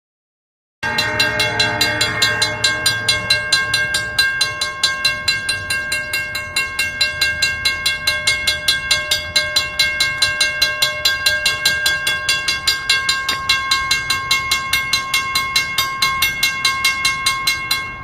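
Railroad crossing bell ringing in a fast, even rhythm of about four strikes a second, starting abruptly about a second in. Its ringing tones carry steadily between strikes, with extra lower tones under the first couple of seconds.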